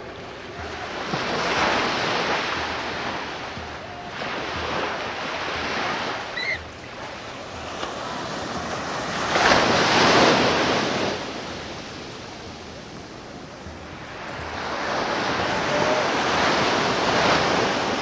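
Ocean surf breaking on a sandy beach, rising and falling in slow swells, with the biggest wave about ten seconds in.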